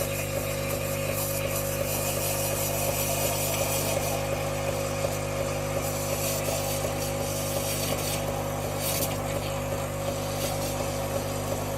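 Saeco bean-to-cup coffee machine's steam wand frothing milk in a jug: a steady pump hum under an even hiss of steam.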